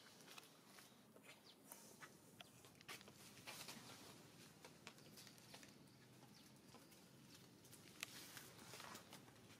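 Near silence: faint outdoor ambience with scattered light clicks and rustles and a few brief high chirps.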